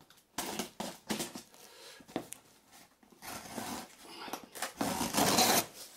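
Packing tape on a cardboard box being slit with a craft knife and the flaps pulled open: irregular scraping, tearing and rustling of cardboard, loudest near the end.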